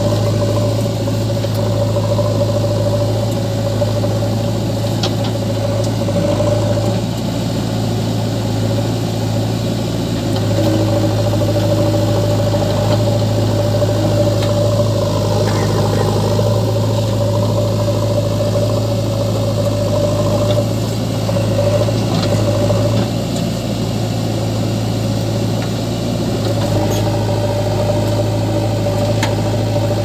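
Diesel engines of a JCB 3DX backhoe loader and a tractor idling steadily: an even low hum with a higher drone that fades out now and then.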